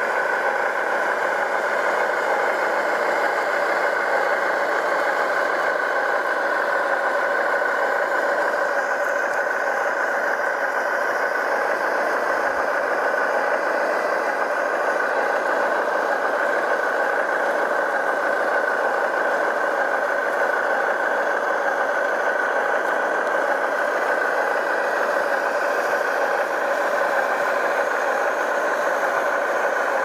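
Large radio-controlled model vehicle running, a steady, even hum that holds one pitch throughout, with almost no deep rumble.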